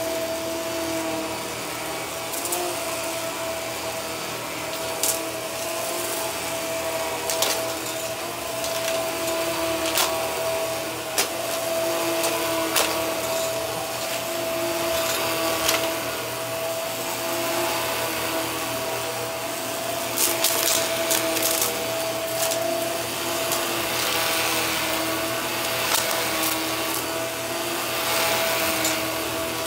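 Upright vacuum cleaner running on carpet, its motor giving a steady whine, with a lower tone that wavers as it is pushed back and forth. Scattered sharp clicks and crackles come as bits of debris are sucked up, bunched together about two-thirds of the way through.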